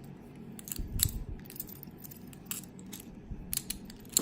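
Silverline four-lever brass padlock being handled and locked: scattered small metallic clicks and rattles, busier towards the end and finishing with one sharp click.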